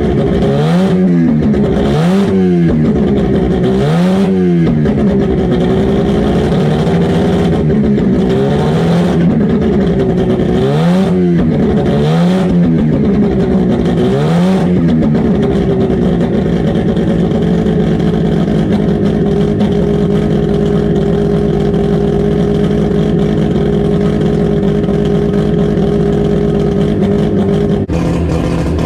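Car engine being blipped: about six quick revs in the first fifteen seconds, each rising and falling back. It then settles into a steady idle, and the note shifts slightly just before the end. The engine is being run up after sitting unused for a while.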